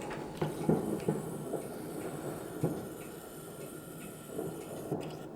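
Distant New Year fireworks: irregular muffled bangs, several in the first three seconds and loudest about a second in, over a steady background hiss.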